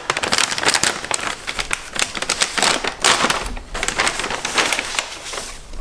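Plastic carry-out bag and brown paper bag rustling and crinkling as they are handled, a dense, irregular crackle of handling noise.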